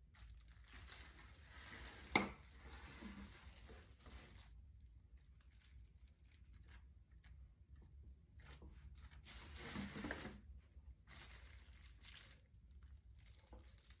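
Thin plastic sheeting crinkling faintly in several bursts as it is handled, with one sharp tap about two seconds in.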